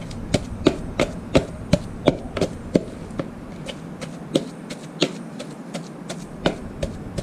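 Wooden pestle pounding a moist chili and fermented-soybean paste in a mortar: a steady run of dull knocks, about three strokes a second.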